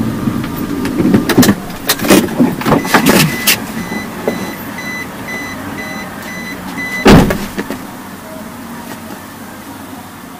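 Tyre pressure being checked on a car: several clicks and knocks, a repeating short electronic beep, and a short burst of hiss about seven seconds in.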